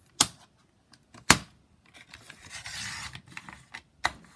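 Two sharp clicks, then a blade drawn along a single sheet of paper in one scraping stroke lasting about a second and a half, and another click near the end. The cut is not going cleanly through: it takes more effort than one layer of paper should.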